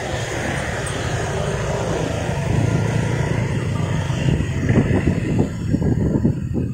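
Road traffic passing close: a large vehicle's engine running with a steady low hum, and a motorcycle engine going by about halfway through.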